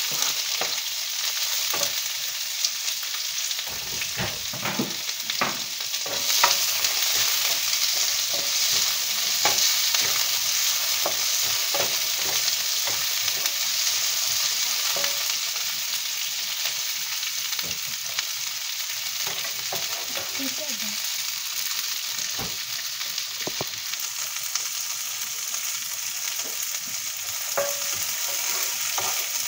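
Chopped onion, garlic, ginger and chili sizzling steadily in a hot frying pan, stirred with a wooden spatula that knocks and scrapes against the pan in frequent short clicks.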